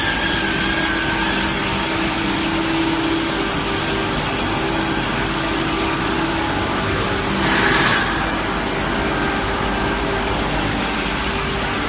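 Steady machinery noise of a pulp-moulding shoe tree production line: a constant hum under a hiss, with a brief louder hiss about seven and a half seconds in.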